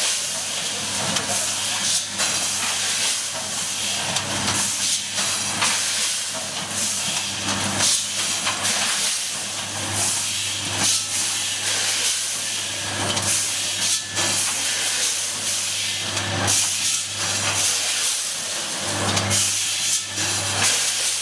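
Quad seal bag vertical form-fill-seal packaging machine running: a steady loud hiss, strongest in the highs, broken by frequent short clicks, over a low hum.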